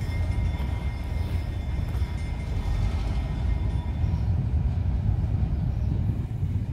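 Freight train rolling away, its diesel locomotive and covered hopper cars giving a steady low rumble.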